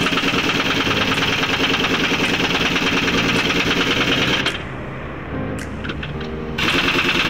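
Heavy-duty pneumatic impact wrench hammering on a truck wheel's lug nuts, rapid and loud. It stops about two-thirds of the way in, leaving a quieter steady hum, and starts hammering again near the end.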